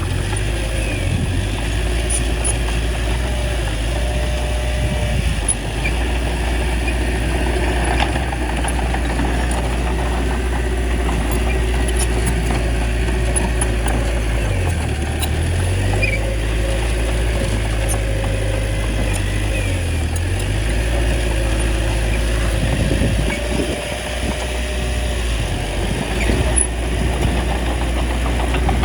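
Small bulldozer's diesel engine running steadily, its low note dipping briefly twice around the middle.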